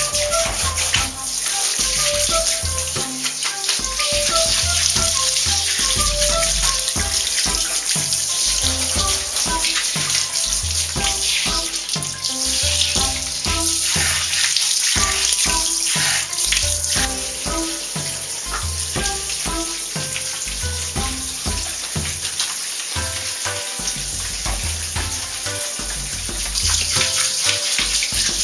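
Water from a hand-held shower spraying onto a wet Yorkshire terrier and the tiled floor, with background music playing throughout.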